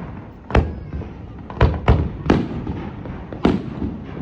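Aerial firework shells bursting in the sky: five sharp bangs at uneven intervals, three of them in quick succession in the middle, each trailing off in a low rumble.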